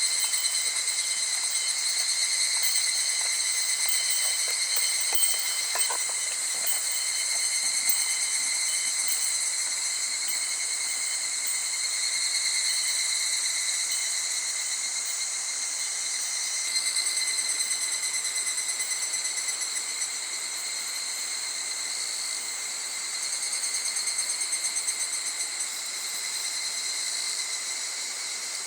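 Cicadas singing in a continuous chorus, a steady high-pitched ringing drone, among them the higurashi (evening cicada). A few faint clicks about six seconds in.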